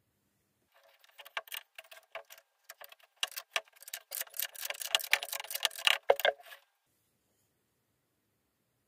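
Metal windscreen-wiper linkage arm clicking and rattling lightly as it is handled and worked on its pivot, which turns in a brass bushing: a quick, irregular run of ticks that starts about a second in, is thickest between three and six seconds, then stops.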